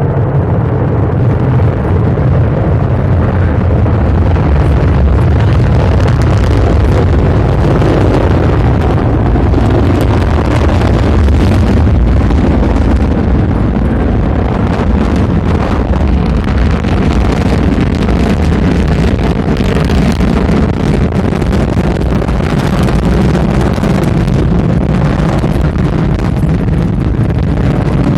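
Soyuz rocket's first-stage and strap-on booster engines at full thrust as it climbs away after liftoff: a loud, steady, deep rumble with constant crackle.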